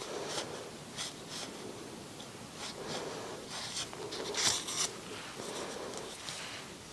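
Wool yarn and a yarn needle scratching and rustling as small crocheted pieces are stitched together by hand, heard close on a clip-on microphone, with a louder scratch about four and a half seconds in.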